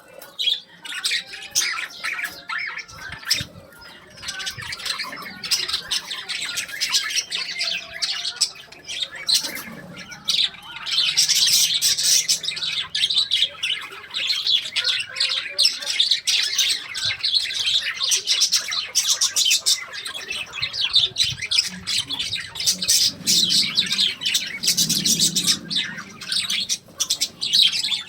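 Small pet parrots chattering and squawking in a dense, continuous stream of rapid high calls, growing louder about ten seconds in.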